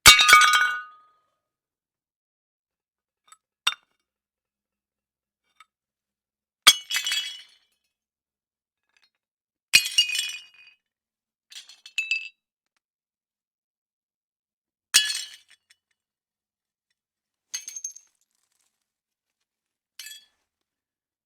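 Ceramic plates smashing, one after another: about eight separate crashes a few seconds apart, each a sharp break followed by a brief clatter of shards. The first crash is the loudest and the last few are smaller.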